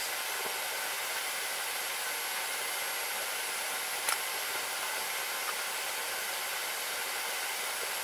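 Steady airy hiss with one faint click about four seconds in.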